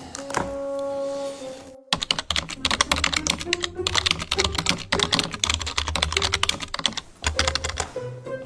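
A short held tone, then about two seconds in a long run of rapid, dense clicking like keys being hammered, over a low rumble.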